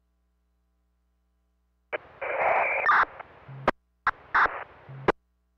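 Fire department radio channel heard through a scanner: silent at first, then about two seconds in a burst of static and hiss as a radio keys up with no clear words, followed by sharp squelch clicks and short static bursts as radios key and unkey.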